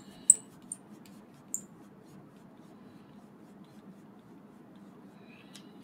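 A few small, sharp clicks in the first second and a half, with one more near the end: a small screwdriver and small model parts being handled, with faint steady room noise between.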